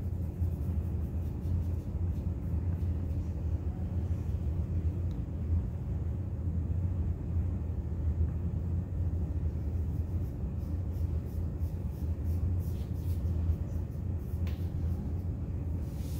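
Steady low rumble of room background noise, with a few faint light ticks over it.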